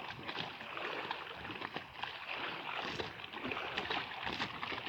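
Water lapping and splashing in many small, irregular splashes.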